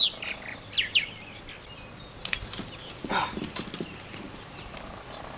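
A few short, falling bird chirps in the first second. Then, about two seconds in, a rapid flurry of wet slaps and rattles lasting about two seconds as a small sunfish flops and shakes on the fishing line.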